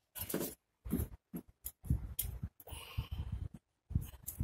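Hands working at a rear disc-brake caliper: irregular short knocks, clicks and rustles, as the caps over the caliper bolts are handled.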